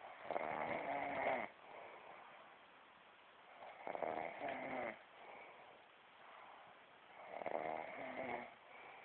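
A person snoring in sleep: three snores, each a little over a second long and about three and a half seconds apart, with quieter breathing between.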